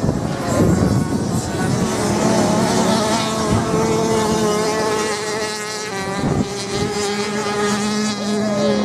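Several off-road racing motorcycles running at once on a sand track, their engines revving up and easing off as they race round the course.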